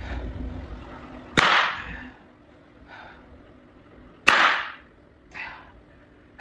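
Two sharp cleaver chops at a whole watermelon on a wooden cutting board, about three seconds apart, each followed by a fainter knock.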